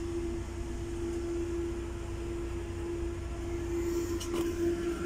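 Steady machine hum: a low rumble under a constant mid-pitched tone. A couple of light knocks about four seconds in.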